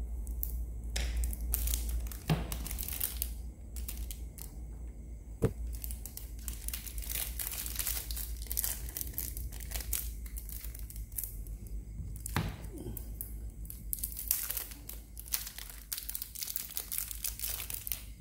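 Packaging crinkling and rustling as it is handled, with a few sharp clicks, about two, five and twelve seconds in.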